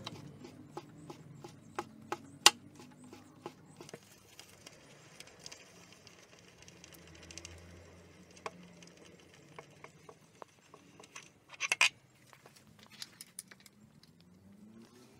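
Sharp metallic clicks and ticks from a bicycle crankset being worked by hand: a run of about three a second over the first four seconds with one much louder click among them, then sparse ticks and a quick cluster of clicks near twelve seconds.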